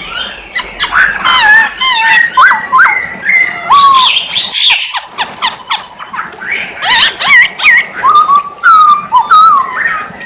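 Chinese hwamei (poksay hongkong) singing a rapid, varied string of loud slurred whistles, with a short pause about halfway through.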